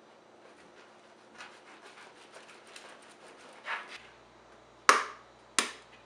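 Hands handling food and kitchen things: soft rubbing and scraping, then two sharp taps near the end, about 0.7 s apart. A faint low hum comes in about four seconds in.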